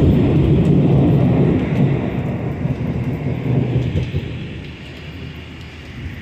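Rolling thunder from a nearby lightning strike. It rumbles loudest for the first couple of seconds, then dies away.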